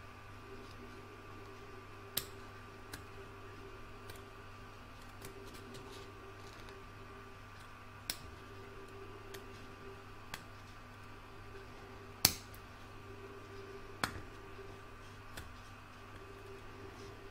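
Curved embroidery scissors snipping stabilizer close to the stitching of a piece in an embroidery hoop: scattered sharp snips, a handful of them louder, the loudest about twelve seconds in.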